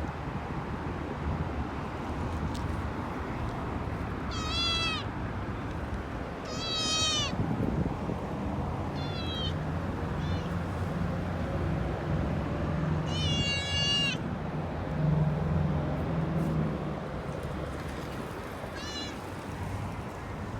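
Kitten meowing: about six short, high-pitched mews, each bending down in pitch, spaced irregularly, over a steady low background rumble.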